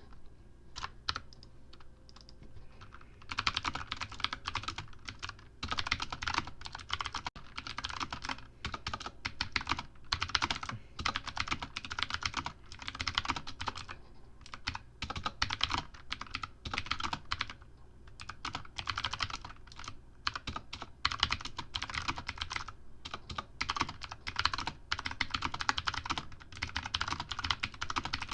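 Fast typing on a computer keyboard, a rapid run of key clicks in bursts with short pauses between words. It starts with a few scattered keystrokes before settling into steady fast typing about three seconds in.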